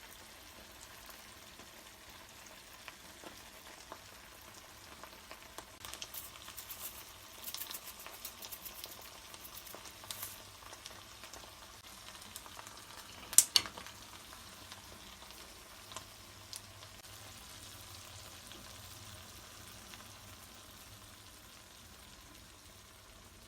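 Pad thai frying faintly in a pan, with a soft sizzle and scattered crackles and clicks that are busiest in the middle. A sharp double click a little past halfway is the loudest sound.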